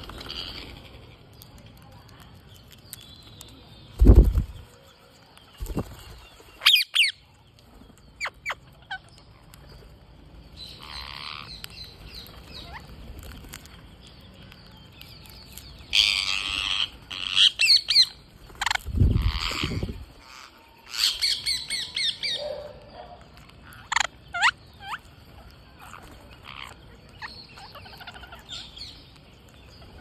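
Rose-ringed parakeets giving scattered short, harsh squawks and shrieks, in clusters that are busiest in the second half. Two low thumps, one about four seconds in and a longer one near the twentieth second, are the loudest sounds.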